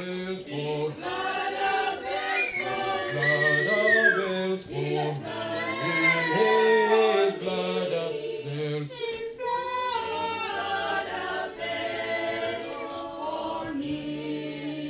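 A small group of voices singing a hymn together, holding long notes and moving between them, over low sustained bass notes.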